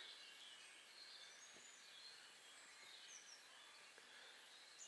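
Near silence: faint outdoor background with a few faint, short bird chirps.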